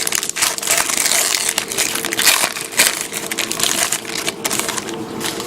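Foil trading-card pack wrapper crinkling and rustling as the pack is opened and the cards are pulled out, with many small irregular crackles and clicks.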